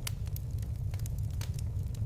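Fire crackling: sharp pops and snaps several times a second over a steady low rumble of burning.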